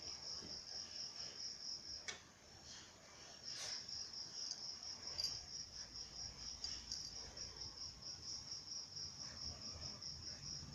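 A cricket chirping in an even, high-pitched pulse of about four to five chirps a second, breaking off for about a second and a half about two seconds in. A couple of light knocks are heard, one just as the chirping stops.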